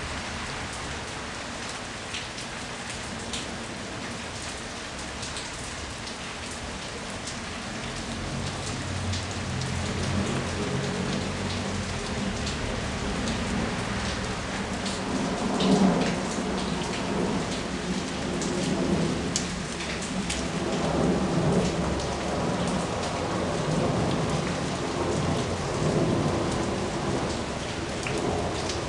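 Rain falling steadily with scattered drops pattering close by. A low rumble of thunder builds about a third of the way in and rolls on, swelling loudest around the middle.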